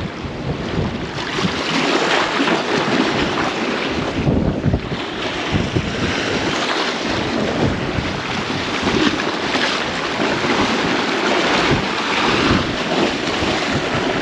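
Gale-force wind buffeting the microphone in irregular gusts, over the wash of waves on the shore.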